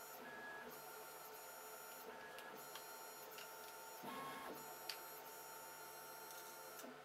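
Faint whine of a 3D printer's stepper motors running: steady tones, with higher whines that start and stop every second or so as the machine moves.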